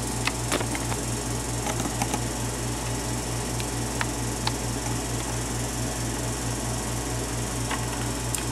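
A steady low hum with a fast, even pulsing, and a few faint light clicks scattered through it.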